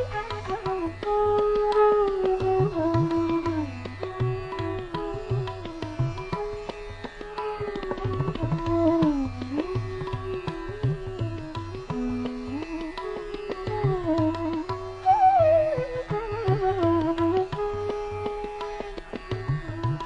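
Instrumental background music in an Indian classical style: a melody that slides between notes, over hand-drum strokes.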